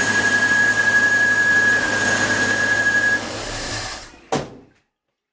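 1972 Mazda RX3's freshly rebuilt 10A two-rotor Wankel engine running steadily with a high whine, then dropping and dying away about three to four seconds in, followed by a single sharp click.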